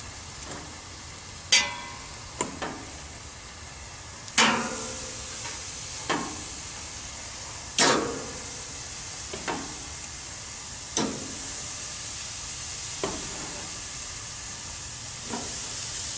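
Pork chops sizzling on the grates of a Weber Genesis gas grill: a steady hiss, with sharp, briefly ringing clacks every second or two.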